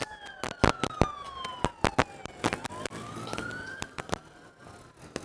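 Emergency vehicle siren in a slow wail, falling, rising again and falling, with many sharp cracks and pops scattered over it.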